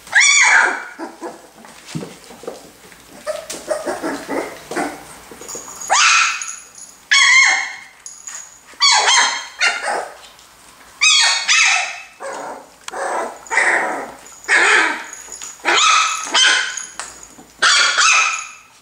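Pumi puppy barking in high, yappy barks. After one bark at the start and a few quieter seconds, there are about a dozen short barks, one every second or so.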